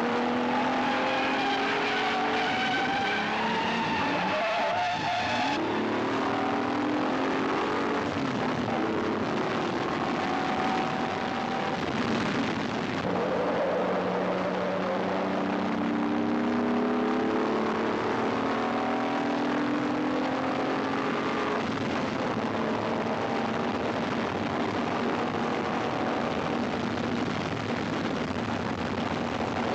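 Sports car engine running at high revs, its pitch climbing in long pulls broken by gear changes, with some tyre squeal.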